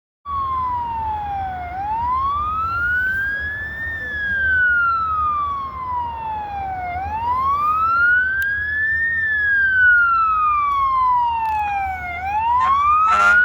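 Fire engine siren on a slow wail: one long tone rising and falling, about once every five seconds, over a low engine rumble. Just before the end a second, harsher blaring horn cuts in.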